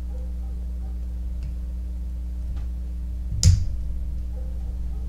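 Small metal clicks from a padlock being disassembled by hand, with one sharper, louder click about three and a half seconds in, over a steady low hum.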